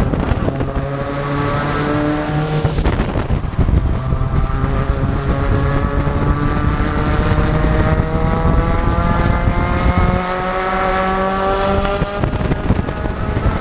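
Onboard sound of a Spec Racer Ford Gen3 race car's engine under hard acceleration, with wind rushing past the open cockpit. The revs climb, break off about three seconds in, then rise slowly and steadily for about eight seconds before dropping near the end.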